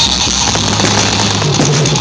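Loud music with steady held notes over a sustained bass line.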